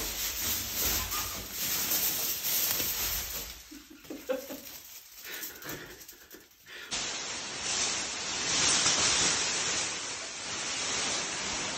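Aluminium foil rustling and crinkling, with a quieter stretch in the middle before it picks up again.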